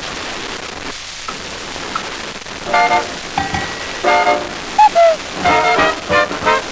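Steady hiss of an old broadcast recording, then a swing band starts up about three seconds in, with brass playing short, punchy notes and a sliding note near the middle.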